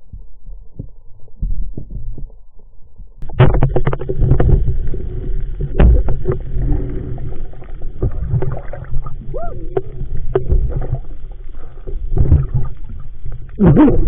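Muffled sound of water picked up by a camera held underwater: irregular sloshing, gurgling and knocks as the diver swims, fairly quiet for about three seconds, then louder and busier.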